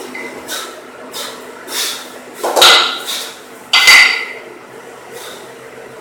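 A pair of 12 kg kettlebells clanking during a two-arm long cycle: two loud metal clanks a little over a second apart near the middle, with short, regular puffs of breath around them.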